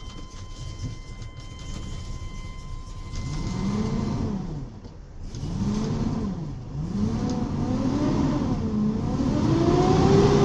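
Motorhome engine revved in four swells, its pitch rising and falling each time, the last swell the loudest near the end. For the first three seconds a steady electronic warning tone sounds over the engine.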